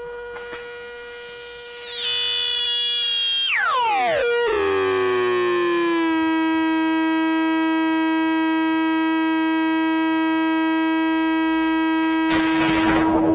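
MFOS Weird Sound Generator, a DIY analog synthesizer, making electronic tones. Pitches swoop and fall steeply over the first few seconds, then settle into one steady drone rich in overtones. A burst of hiss comes near the end.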